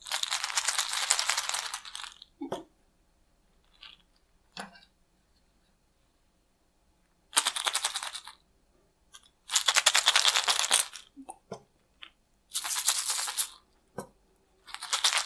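Homemade sound cylinders, small plastic chocolate-egg toy capsules filled with dry materials like rice, salt, chickpeas and coins, shaken by hand close to the ear. They make five quick rattling bursts of a second or two each, with a few light knocks in between.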